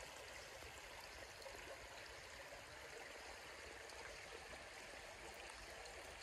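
Faint, steady flow of a small creek.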